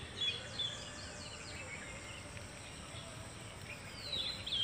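Birds calling: a few short, quick chirps and whistles in the first second and again near the end, over a faint steady background hiss.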